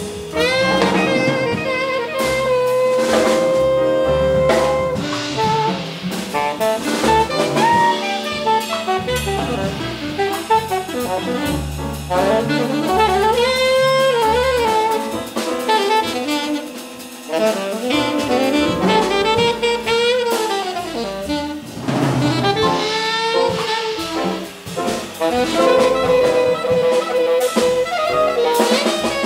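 Jazz quintet playing: an alto saxophone solos with quick runs and bending phrases over a double bass line and drum kit with cymbals.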